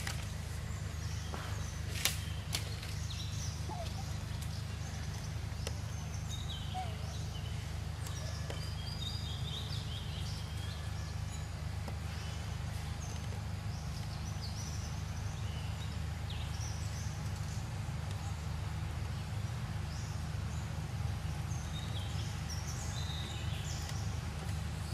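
Outdoor ambience: a steady low rumble with scattered short bird chirps, and one sharp click about two seconds in.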